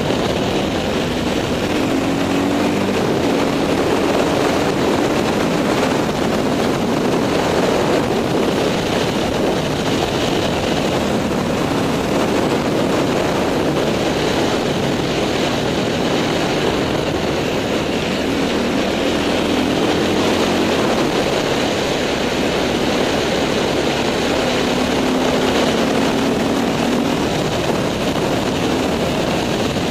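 Dirt bike engine running steadily while riding, its note coming and going under heavy wind noise on the helmet-mounted microphone.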